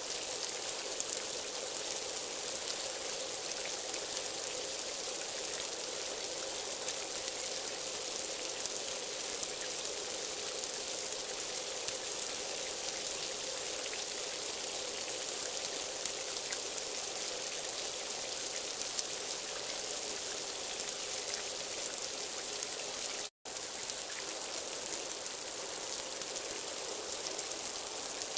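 Heavy rain falling steadily: an even, dense hiss with scattered drop taps. It cuts out abruptly for an instant a little over three quarters of the way through.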